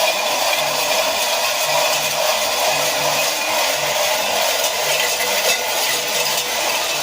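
Many cencerros (cowbells) being shaken at once, a dense, unbroken metallic clanging at a steady level.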